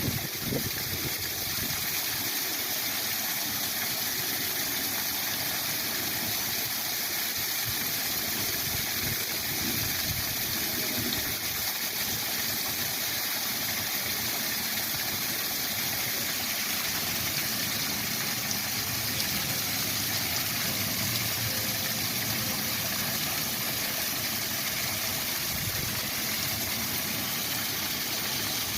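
Waterfall rushing in a steady, unbroken roar of water.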